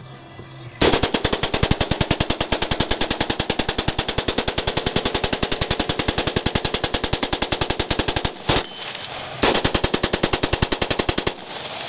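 AR-15 rifle fed from a Beta C-Mag twin drum, bump-firing with a Slide Fire stock. It fires a long string of rapid shots starting about a second in, then a single shot after a short pause, then a second, shorter string that stops near the end.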